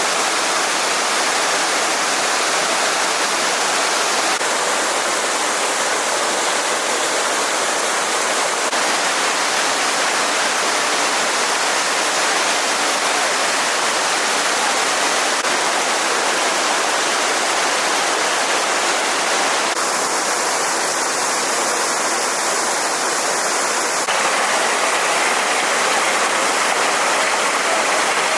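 Steady rushing of a flowing stream, its tone shifting slightly a few times.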